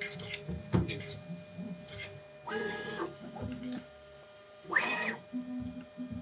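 Bambu Lab A1 Mini 3D printer's stepper motors moving the head and bed through its automatic self-calibration. Low motor hums change pitch in steps, with a few clicks and two short whirring moves, and a hum pulses on and off near the end.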